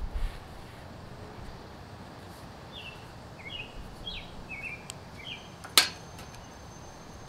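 A bird chirping in a quick run of short notes over faint outdoor background noise, with a single sharp click near the end.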